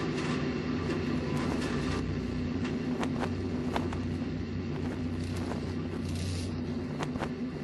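A steady low engine-like rumble with a few sharp clicks scattered through it.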